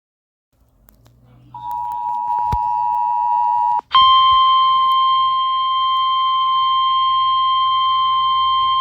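Emergency Alert System alert tones, the lead-in to an Evacuation Immediate message. The two-tone attention signal sounds for about two seconds, with a click partway through. After a brief break, a single steady, harsher warning tone takes over and keeps going, over a faint low hum.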